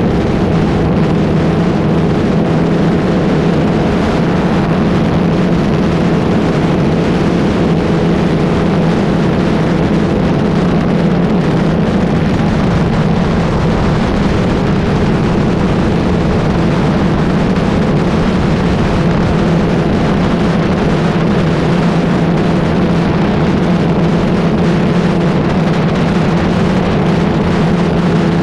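Motorcycle engine running at a steady cruise with no revving, mixed with wind rushing over the microphone.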